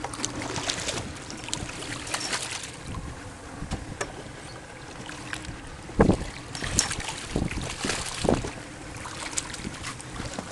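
Hooked barracuda thrashing and splashing at the water's surface beside the boat's hull. There are several sharp splashes, the loudest about six seconds in, over a steady wash of wind on the microphone.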